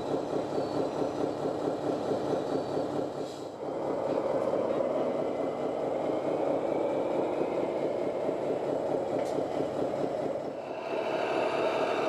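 Radio-controlled model construction machines running. An engine-like chugging pulses about three times a second for the first few seconds, then gives way to a louder, steadier running sound from about four seconds in, which dips briefly near the end and picks up again.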